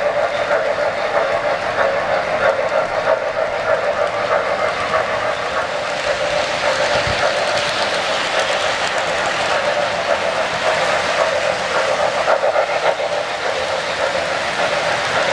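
Two O-gauge three-rail model steam trains running past, rattling the tracks: a steady rattle of metal wheels on the rails over a steady hum.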